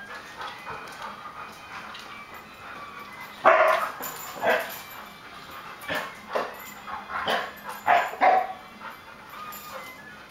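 Dogs play-fighting, giving a run of short, sharp barks, the loudest about three and a half seconds in, with more barks following through the middle.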